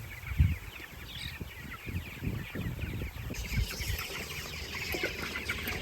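A flock of young broiler chickens chirping and clucking all together, growing busier about three seconds in, with a few low thumps near the start.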